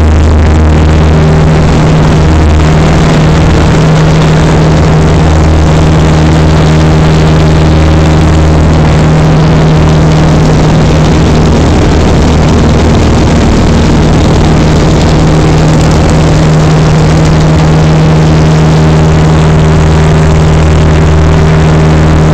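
Piper Archer's four-cylinder Lycoming engine and propeller running steadily at climb power, a loud continuous drone heard from inside the cabin.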